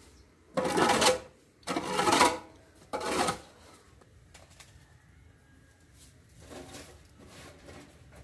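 Long-handled metal shovel scraping buffalo dung across the yard floor: three loud scrapes in the first few seconds, then two fainter ones near the end.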